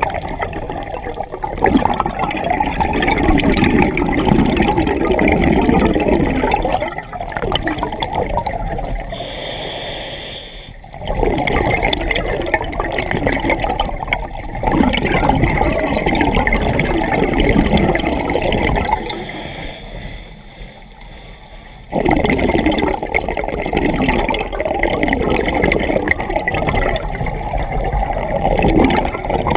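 Scuba diver breathing through a regulator: long, loud rushes of exhaled bubbles streaming past the mask, broken by quieter inhalations, with a thin hiss from the demand valve about ten and about twenty seconds in.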